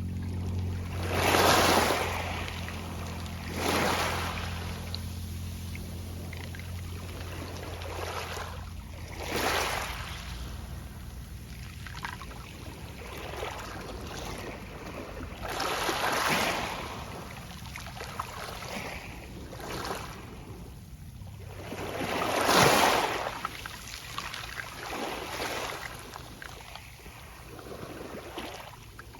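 Small Mediterranean waves washing onto a pebble beach, each one a swelling rush that fades as the water draws back through the stones with a soft rustle of pebbles. Five or six waves come in, the biggest about a second in and again about three-quarters of the way through. A low steady hum sits under the first several seconds and fades out.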